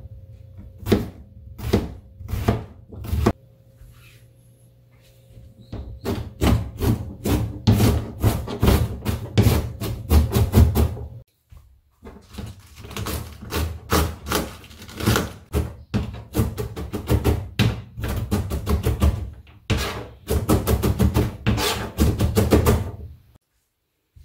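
Kitchen knife cutting on a plastic cutting board: four slow strokes through an onion, then rapid chopping of cabbage at several strokes a second, with a short break about eleven seconds in. The chopping stops just before the end.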